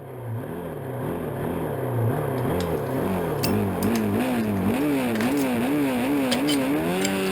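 Honda CB350 parallel-twin race engine revved up and down over and over in a steady rhythm. The revs climb higher and the blips come faster toward the end, with a few sharp ticks on top.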